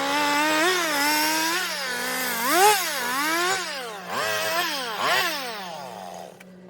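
Chainsaw carving wood, its engine revving up and down again and again as the throttle is worked through short cuts. Near the end the revs fall away and the saw stops.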